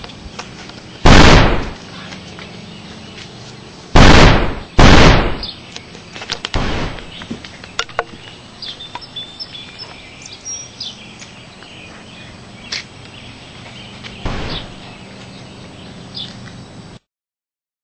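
Gunshot sounds for a finger-gun fight: five loud bangs, one about a second in, two close together around four and five seconds, a softer one near seven seconds and one near fourteen. Birds chirp in between.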